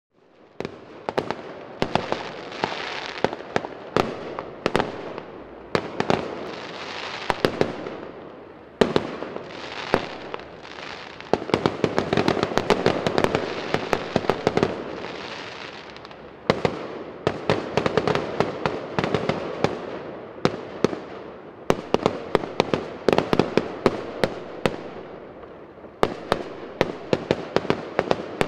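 Fireworks display: aerial shells bursting again and again with sharp bangs, often several in quick succession, each dying away slowly, with stretches of dense crackling.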